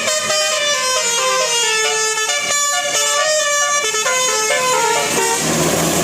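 Bus 'telolet' multi-tone air horn playing a quick tune of stepping notes. A little after five seconds the horn stops and the passing bus's engine and road noise take over.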